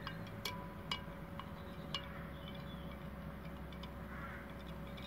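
Glass stirring rod clinking against the side of a glass beaker: four sharp clinks, some with a short ring, in the first two seconds, then a few faint ticks. The rod is stirring freshly added sodium metabisulfite into the gold solution to drop the gold.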